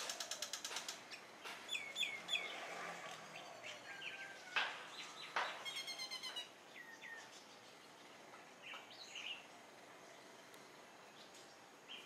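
Common myna calling: a varied run of rapid clicking rattles, short falling whistles and sharp chattering notes. It is busiest in the first six seconds, with only a few fainter calls after.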